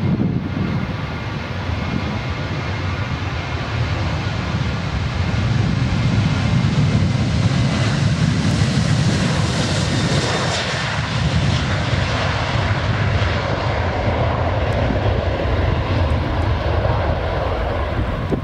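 Boeing 737-800's CFM56-7B turbofan engines at takeoff power during the takeoff roll: a loud, steady jet noise with several whining fan tones, swelling as the aircraft passes about eight to ten seconds in and staying loud as it moves away.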